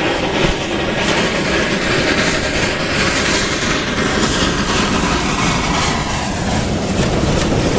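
Narrow-gauge Mallet 0-4-4-0T steam tank locomotive (Ansaldo, 1915) running with a short train of wagons: steady loud steam and exhaust noise with the clatter of wheels on the rails, and steam venting at the cylinders.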